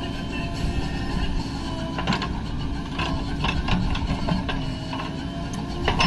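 Diesel engines of a JCB 3DX backhoe loader and tractors running steadily, with several sharp metallic clanks and knocks.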